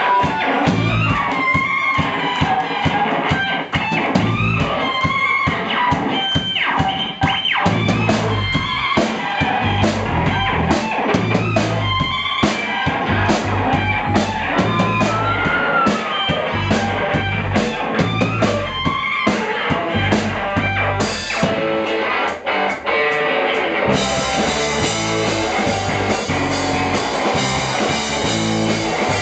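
A live rock band plays with electric guitars, bass guitar and drum kit, loud and steady. About three-quarters of the way through, the low end drops away for a short break, then the full band comes back in.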